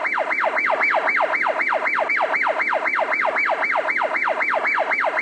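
Emergency vehicle siren in a fast yelp, each cycle snapping up high and sliding down, about four times a second. It stops abruptly near the end.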